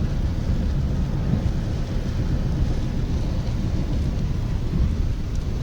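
Steady low rumble with a fainter hiss, heard from inside a car in heavy rain: the running car, with rain on its body and windscreen.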